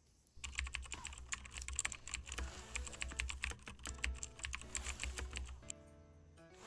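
Rapid clicking like typing on a keyboard, with soft background music under it. The clicking stops a little before the end, leaving a few held tones.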